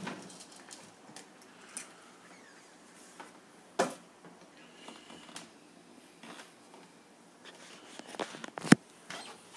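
A few scattered sharp clicks and taps from a cat moving about on a bare wooden floor, the loudest near the end.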